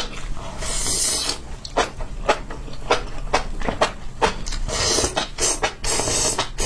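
Close-miked chewing of spicy enoki mushrooms: a run of wet mouth clicks, with two longer noisy stretches, one about a second in and one near the end.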